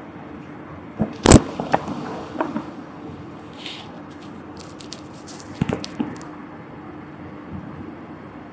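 Several sharp metallic knocks and clanks, the loudest just over a second in and another pair near six seconds, over a steady low machinery hum.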